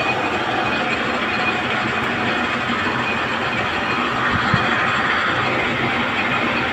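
Machine boring a hole through a steel frame plate, running with a steady metal-cutting noise.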